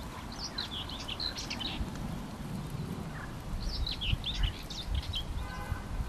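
A songbird singing two quick warbled phrases, the second about three seconds after the first. Near the end comes a short, faint car horn beep in the distance.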